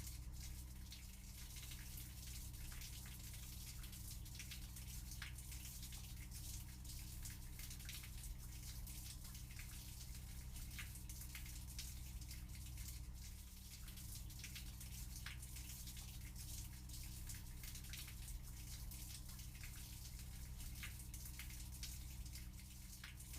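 Rain falling, with many separate drops ticking out over a steady hiss and a low steady hum beneath.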